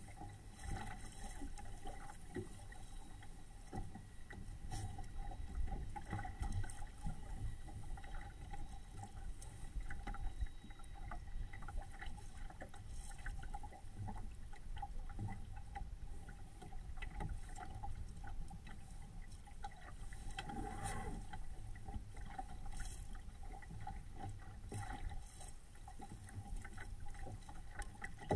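Water sloshing and splashing against the hull of a small home-built SCAMP sailboat under way, in small irregular slaps, over a steady low wind rumble on the microphone.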